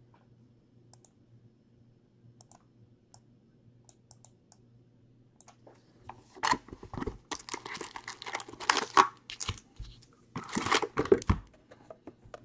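A 2014-15 Panini Prizm basketball hobby box being opened and its foil-wrapped packs pulled out and stacked. Bursts of crinkling and rustling start about halfway through, after faint scattered clicks over a low hum.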